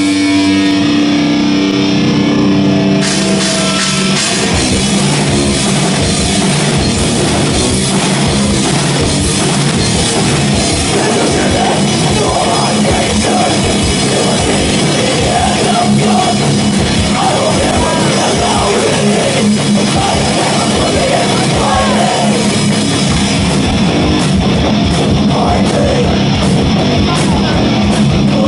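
Extreme metal band playing live, distorted guitars over drums. The first few seconds are held guitar notes; about three seconds in the drums come in, with fast, dense hitting from then on.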